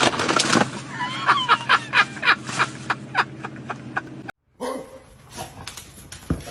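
A dog barking in a rapid run of short, sharp barks and yips, about four a second, with a brief whine about a second in. The barking cuts off abruptly after about four seconds, and fainter short sounds follow.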